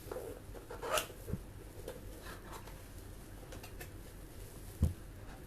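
Faint handling noise: a sharp click about a second in, a dull knock just after, a few light ticks, and a louder dull knock near the end.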